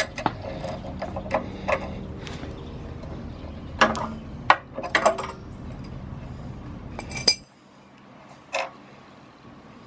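Irregular sharp metal clinks and taps as an adjustable wrench and brass fittings on a pressure washer pump's unloader valve are worked loose and handled. A low steady background rumble cuts off about seven seconds in.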